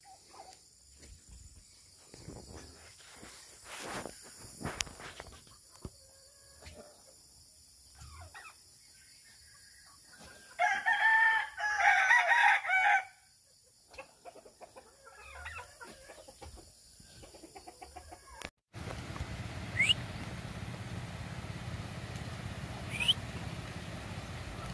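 Chickens scratching and pecking with soft clucks, then a rooster crowing loudly for about two and a half seconds, about ten seconds in. Near the end a steady low hum takes over, with two short rising chirps.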